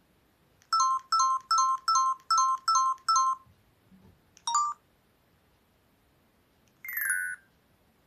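Newgen C800 mobile phone's keypad tones as its menu is scrolled: seven quick two-note beeps, about three a second, one more beep a second later, then a short falling chirp near the end.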